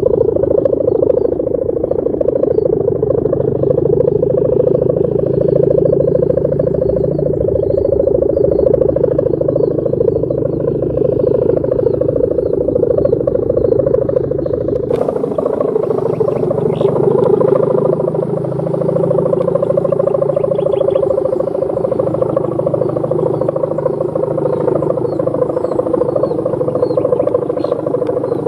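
Kite hummer bow (sendaren) on a large flying kite, droning steadily with a dense wavering hum. The hum changes character abruptly about halfway through, and faint insect chirps sound above it.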